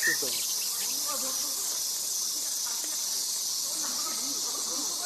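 Steady, high-pitched insect chorus (crickets or cicadas) droning without a break, with faint distant human voices underneath.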